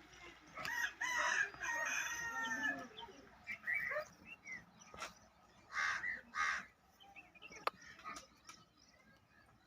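A rooster crows once, a drawn-out call lasting about two seconds, starting about a second in. Later, two short crow caws.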